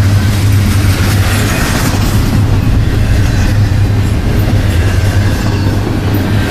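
Double-stack intermodal freight train's well cars rolling past close by: a loud, steady rumble of steel wheels on the rails.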